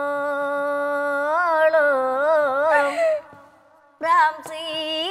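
A woman singing a chavittu nadakam song solo, with no instruments: a long held note that breaks into wavering ornaments, a short breath about three seconds in, then the next phrase with a wavering pitch.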